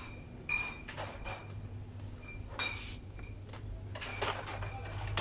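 Supermarket background: scattered clinks and knocks, some of them ringing briefly, over a low steady hum.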